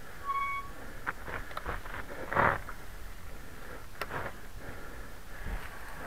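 Recumbent trike on knobby tyres rolling over a leaf-strewn dirt trail: irregular clicks and rattles throughout. A short beep sounds near the start, and a louder, brief rough noise comes about two and a half seconds in.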